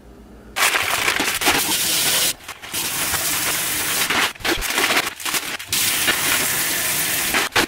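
Plastic bag and butcher-paper wrapping crinkling as they are handled, with a kitchen tap running into the bag. The noise starts about half a second in and breaks off briefly a few times.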